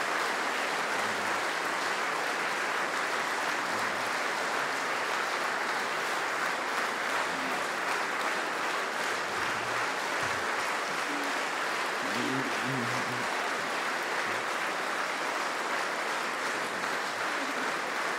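Large audience applauding steadily, a dense even clapping that neither builds nor fades.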